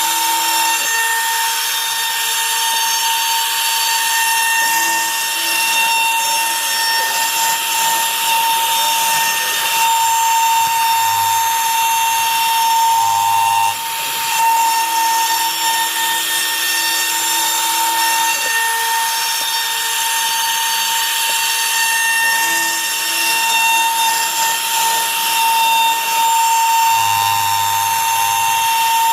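CNC router spindle running steadily with a high whine while its bit cuts wood in a rough clearance pass, with a continuous rasping cutting noise that shifts a little as the tool moves through the wood.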